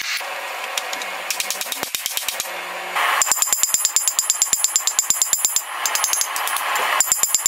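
Hand hammer forging a red-hot twisted steel bar on a steel anvil: lighter, uneven blows at first, then from about three seconds in a fast, even run of ringing strikes. The ringing strikes break off briefly near six seconds and start again just before the end.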